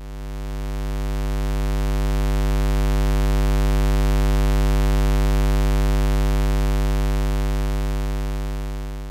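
Steady low electrical mains hum at about 50 Hz with a buzzy row of overtones. It swells to its loudest midway and fades away at the end.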